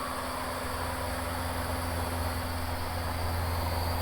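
Van's RV-7 light aircraft's piston engine running steadily, heard from inside the cockpit as an even low hum with a hiss over it.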